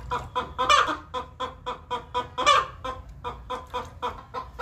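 Chickens clucking in a rapid run of short clucks, about four or five a second, with a louder, fuller call about a second in and another about halfway through.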